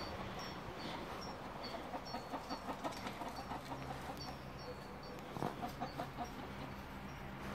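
Chicken clucking: two runs of quick, short clucks, one from about a second and a half to three seconds in and another near the end.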